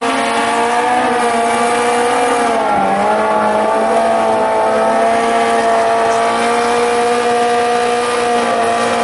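Suzuki GSX-R1000's inline-four engine held at high, steady revs during a burnout, spinning the rear tyre on the pavement; the revs dip briefly about three seconds in, then climb back and hold.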